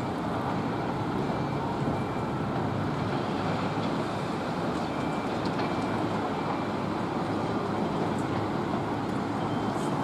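Steady noise of road traffic mixed with distant construction machinery, with no distinct single events.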